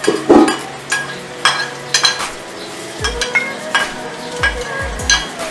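Chopped garlic sizzling in hot cooking oil in an aluminium wok, the first step of sautéing. Short scraping strokes come about twice a second as it is tipped in and stirred.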